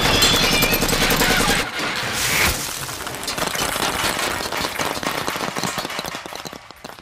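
Animated soundtrack sound effects: a rapid clatter of sharp cracks, loud for the first couple of seconds, then thinning out and dying away.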